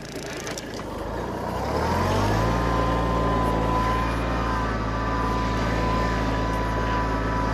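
Kubota B1820 compact tractor's diesel engine revving up over about a second, then running steadily under load while pulling a mounted plough through the soil.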